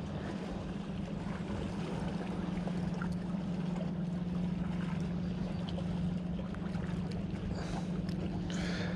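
Motorboat engine running steadily, a low even hum that grows slightly louder.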